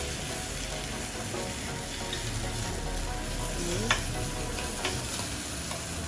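Pork belly sizzling as it fries in its own fat, with no oil added, in a stainless steel electric skillet. A couple of sharp clicks about four and five seconds in, from metal tongs against the pan as the pieces are turned.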